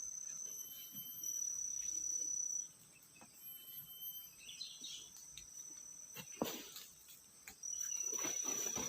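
Forest insects calling in a steady high-pitched buzz that stops about two and a half seconds in and starts again near the end, with a few knocks and rustles in the gap and toward the end.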